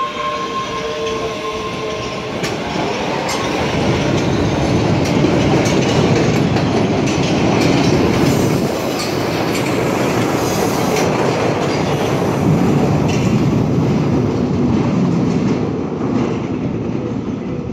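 MBTA Red Line subway train pulling out of an underground station: a motor whine rises in pitch at the start, then the rumble and clatter of wheels on the rails grows loud as the cars pass. It fades near the end as the train goes into the tunnel.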